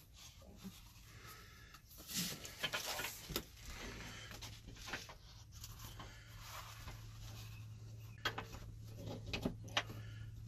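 Soft rustling of toilet paper rolls being handled, with scattered light clicks and taps as spring-loaded roller rods are pushed into the rolls and the rolls are snapped into plastic toilet paper holders. A low steady hum comes in about four seconds in.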